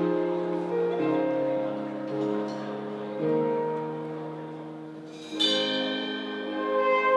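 Slow instrumental music playing held chords, with a brighter, louder entry about five seconds in.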